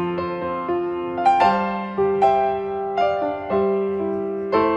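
Background piano music: single notes and chords struck one after another, each fading away, in a slow, gentle melody.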